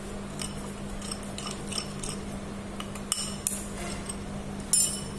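Metal spoon clinking against a glass bowl and a stainless-steel mixing vessel as salt is spooned and tipped in: scattered light clinks, with a louder cluster near the end.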